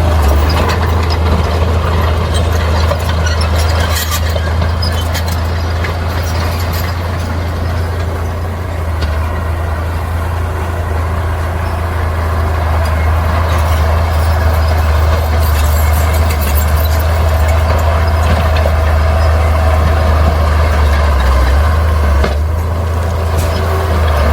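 Bulldozer's diesel engine running steadily under load, a constant low rumble, with scattered sharp knocks and clanks over it.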